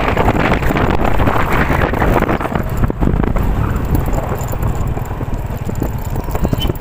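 Typhoon wind gusting: a loud, steady rushing that eases gradually after about three seconds.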